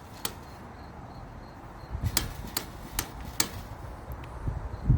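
Sharp clicks from a bicycle caliper brake being squeezed and released: one near the start, then four in quick succession about half a second apart between two and three and a half seconds in, with low handling noise.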